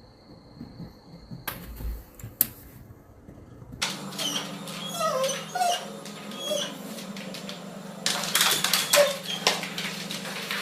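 A pet making short, high whimpering squeaks over a steady low hum, starting about four seconds in after a nearly quiet stretch with a couple of clicks.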